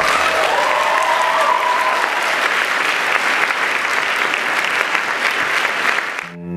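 Theatre audience applauding, a dense, steady clapping, with one high voice cheering in the first two seconds; the applause cuts off suddenly near the end.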